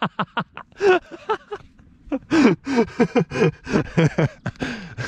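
A man laughing hard in short, repeated bursts that fall in pitch. There is a brief break about two seconds in, then a longer run of laughter.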